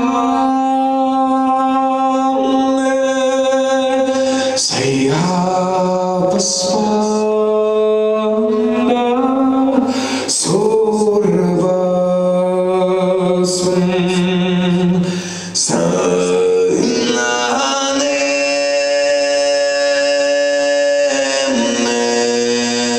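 Male throat singing: a held low drone with a melody of bright overtones moving above it, in long phrases broken by short breaths about 5, 10 and 15 seconds in.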